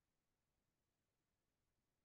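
Near silence: the sound track is almost completely muted.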